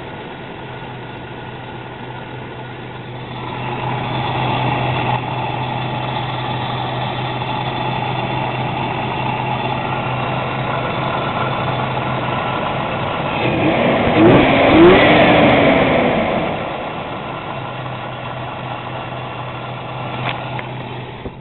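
1995 Toyota 4Runner engine with a cold air intake, running with a steady hum. It gets louder a few seconds in, swells louder again with short rising-and-falling sweeps about two-thirds of the way through, then settles back.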